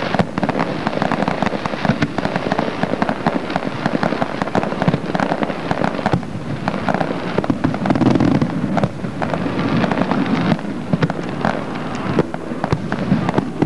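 Fireworks going off: a dense, continuous crackle of many sharp pops.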